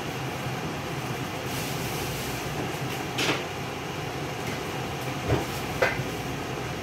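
Steady whirring hum of a kitchen range hood fan, with three short knocks about three, five and six seconds in.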